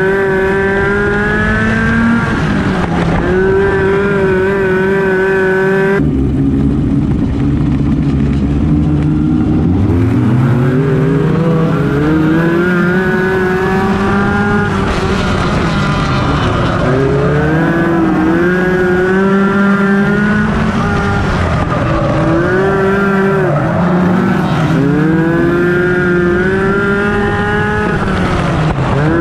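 Onboard sound of a Focus midget race car's four-cylinder Ford Focus engine at racing speed on a dirt oval. The engine note holds high down the straights, then drops as the driver lifts for each turn and climbs back up as he gets back on the throttle, every few seconds, over a rush of wind and tyre noise.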